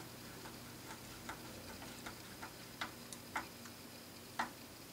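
Small screwdriver turning a tiny screw into the model car's roof frame: faint, sharp clicks at irregular intervals, the loudest a little after four seconds in.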